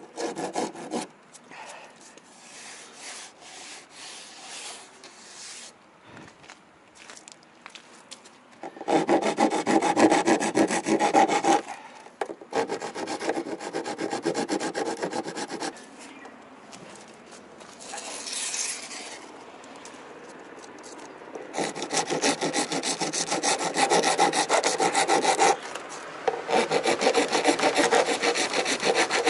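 Steel hand file rasping hardened drips of epoxy off a fibreglass-and-epoxy boat hull, in runs of fast back-and-forth strokes with quieter scraping between runs.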